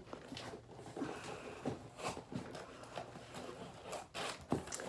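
Cardboard shipping box being handled and its flaps opened: scattered rustles, scrapes and soft knocks of cardboard.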